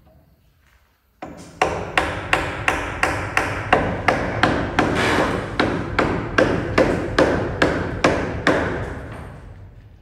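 A hammer striking overhead into a wooden ceiling frame in a steady run of blows, about three a second. Each blow rings on through the metal-roofed room, and the blows fade away near the end.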